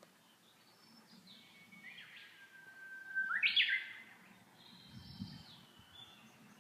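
Japanese bush warbler singing its 'hoh-hokekyo' song once, about three seconds in: a long held whistle that breaks into a quick rising flourish. Fainter bird calls sound around it.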